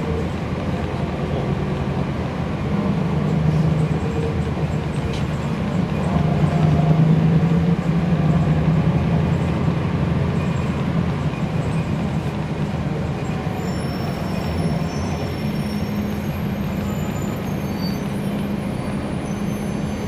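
Cummins ISL9 diesel engine of a 2011 NABI 40-SFW transit bus running as the bus drives, heard from inside the passenger cabin. The engine note swells louder for a few seconds about six seconds in, then settles back to a steady drone.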